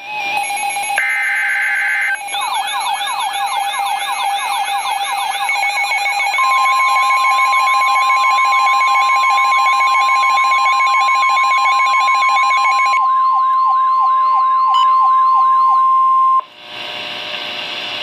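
Midland NOAA weather radio sounding an emergency alert. A burst of two rapidly alternating data tones comes first, then an electronic siren of fast, repeating rising sweeps. About six seconds in, a steady single alert tone near 1 kHz joins it, the weather radio's warning tone. Both cut off together near the end, and a moment of hiss follows.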